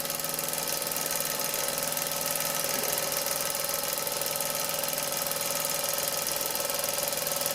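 Doll 320/3 toy upright steam engine running steadily under steam, a little slow.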